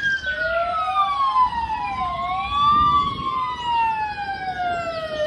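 Fire engine sirens wailing: two overlapping wails sliding slowly up and down, one rising while the other falls, with a low engine rumble underneath.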